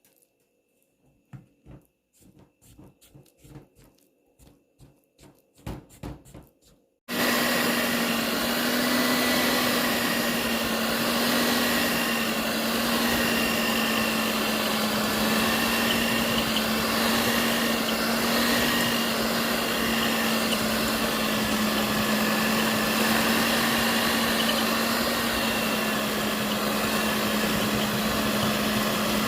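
Small taps and knocks, then about seven seconds in an electric mixer switches on and runs steadily with a constant hum and whine while mixing pastry dough.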